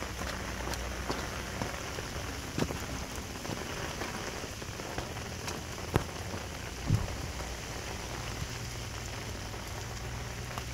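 Steady rain falling, with a few sharp taps close by standing out above the steady rain.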